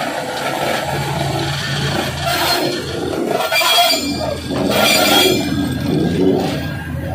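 Plasser & Theurer 08-16 track tamping machine rolling slowly past on the rails, its diesel engine running steadily, with a few short hissing bursts about two, three and a half and five seconds in.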